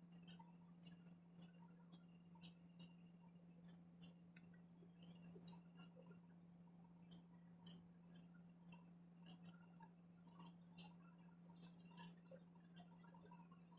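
Near silence: faint, irregular small clicks and clinks, about one a second, over a steady low hum.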